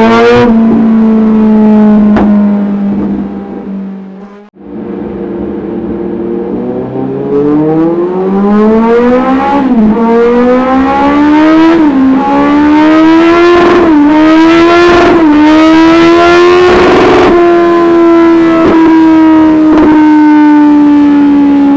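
Kawasaki Z900's 948 cc inline-four engine through an aftermarket exhaust, loud. It is held at steady revs and then cut off about four seconds in. From about seven seconds it pulls hard, the revs climbing and dropping back sharply four times at the gear changes, then holding high and slowly easing off.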